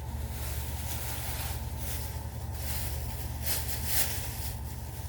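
Steady low hum and airflow of a ceiling air-conditioning vent, with a few short bursts of rustling as things are handled.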